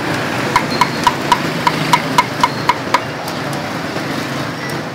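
A run of about ten quick, evenly spaced knocks with a slight ring, about four a second, over a steady background noise.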